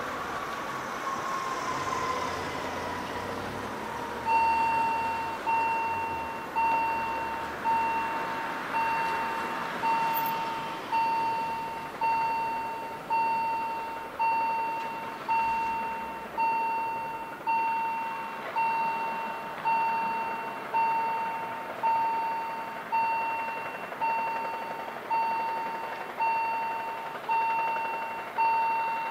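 Level-crossing warning bell starting about four seconds in and ringing steadily about once a second, each ding a single pitched strike that fades, as the crossing closes for an approaching train. Before the bell, a car drives past.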